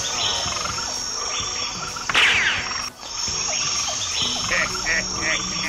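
Jungle ambience: a steady high insect drone with frog calls and short falling chirps over it. The ambience briefly drops out about three seconds in.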